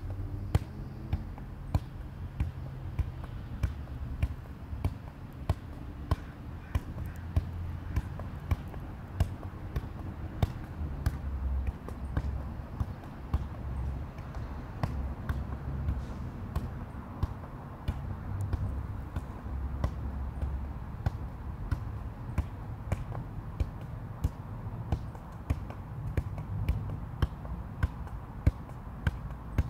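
Soccer ball being juggled: a steady run of sharp thuds as the ball is kicked up off the foot and thigh, roughly one to two a second.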